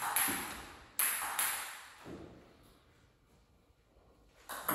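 Table tennis ball struck by paddles and bouncing on the table: a short exchange of sharp clicks, often in strike-and-bounce pairs, ringing in the room. The clicks stop for a couple of seconds, then start again just before the end.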